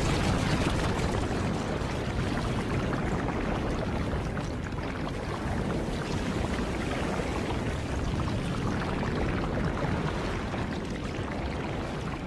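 Sound effect of a giant black sphere bursting into a surging flood of thick black liquid: a steady, dense rushing and pouring like a mass of water sweeping over the ground.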